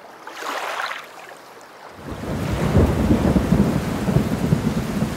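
Thunderstorm: a steady hiss of rain, then a loud, low rumble of thunder rolling in about two seconds in and carrying on.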